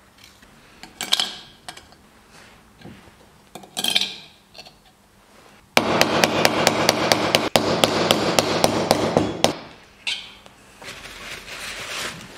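Rapid light hammer taps on a seal driver, driving the crankshaft oil seal into its bore in the aluminium Vespa GS150 crankcase. About five ringing metallic taps a second for nearly four seconds, starting about six seconds in.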